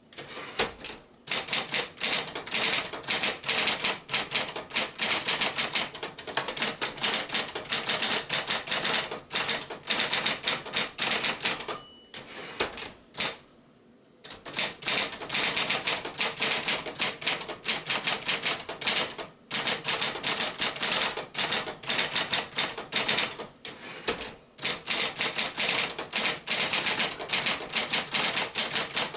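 Royal 1200 Electric typewriter, a Silver-Seiko-built Apollo variant, typing in quick runs of key strikes broken by short pauses. About twelve seconds in there is a brief ringing tone, followed by a pause of a second or so.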